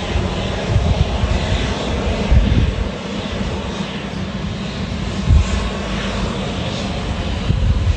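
Passenger aircraft engines running loud: a steady rush of noise over a deep rumble that swells now and then.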